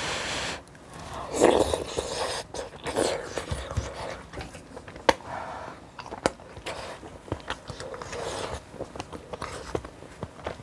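Close-miked eating sounds: irregular biting and chewing, with a few sharp clicks and scrapes.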